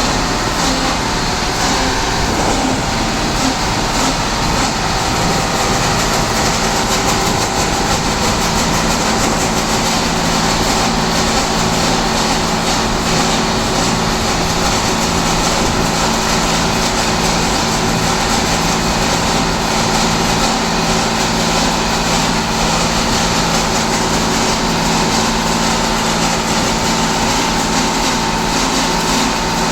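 Class 165/166 'Turbo' diesel multiple unit's engine running steadily at standstill with a fixed whining tone over it, a quite horrible noise that is the sign of something wrong with the unit.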